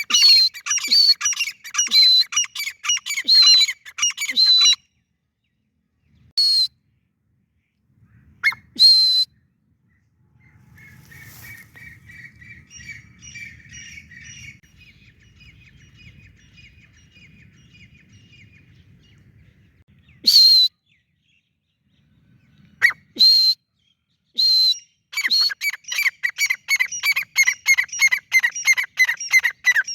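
Gray francolin (teetar) calling: fast runs of short, high, downward-sliding calls, several a second, broken by pauses and single calls. A quieter stretch in the middle holds soft chirping over a low rumble.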